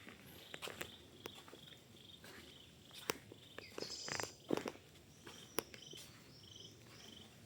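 Footsteps on the forest floor, with scattered twig snaps and a louder rustle near the middle. Faint high chirping comes in short repeated pulses.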